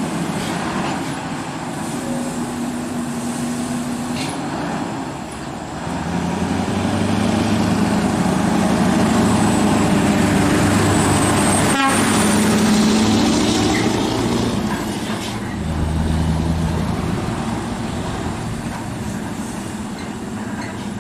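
Scania R580 truck's V8 diesel engine running under load as it hauls a bulldozer, its note shifting several times. It grows louder for several seconds in the middle, with a sharp click partway through.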